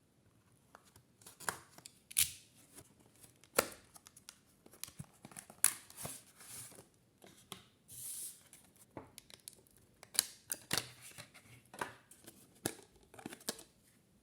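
Hands handling small hardware parts: irregular sharp clicks and taps mixed with short scrapes and rustles.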